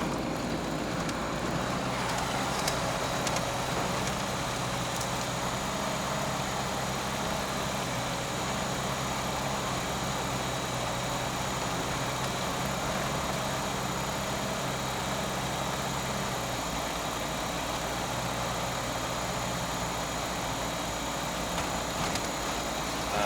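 Steady in-cabin noise of a car driving on a snowy road: engine hum under tyre and road noise. The engine note changes about 16 seconds in.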